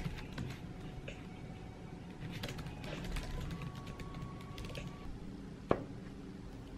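Typing on a MacBook laptop keyboard: soft, uneven key clicks, with one sharper knock near the end.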